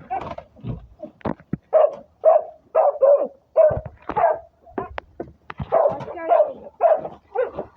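A dog barking over and over in a quick series, roughly two barks a second, worked up by chickens fighting.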